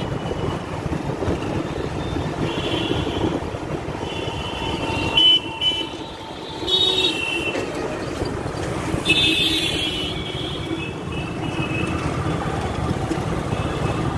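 Busy street traffic heard from a moving motorcycle: a steady rumble of engines and road, with vehicle horns honking several times. The loudest horn blasts come about five and seven seconds in.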